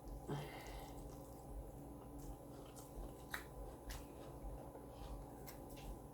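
Faint close-up chewing of taco mouthfuls, with scattered small wet mouth clicks and a short rustle about a third of a second in.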